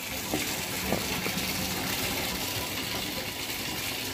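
A steady rushing hiss, with a couple of faint soft knocks in the first second.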